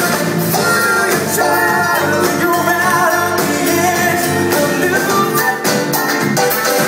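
Live band music: drum kit keeping a steady beat under electric guitars, bass and a horn section, with singing.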